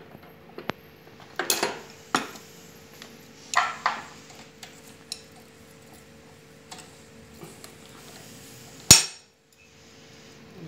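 Metal tools clinking and clanking on a motorcycle frame as a socket wrench with an extension is fitted to the upper mounting nut of a rear monoshock. It is a handful of scattered clanks, with the sharpest and loudest about nine seconds in, over a faint steady hum.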